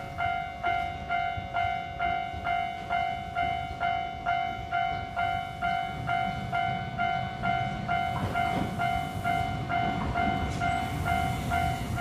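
Japanese railroad crossing warning bell ringing its repeated 'kan-kan' tone, a little over two strikes a second, each strike fading before the next. It signals that the barriers are down and a train is coming.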